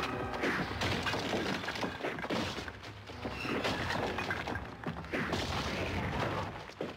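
Film soundtrack of a fist fight: dramatic score under a run of blows, crashes and impacts.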